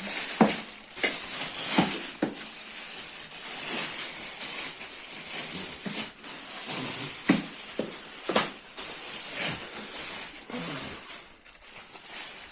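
Plastic vacuum cleaner parts being handled and fitted together: scattered sharp clicks and knocks over a rustle of plastic packaging.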